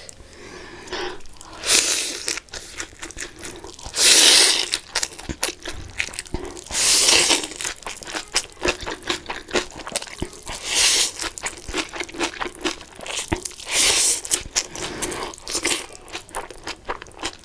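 A person chewing crunchy food. Loud crunching bites come every few seconds, with smaller chewing clicks between them.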